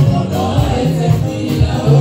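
Gospel praise song sung by a group of singers into microphones, backed by a band with a held bass line and percussion.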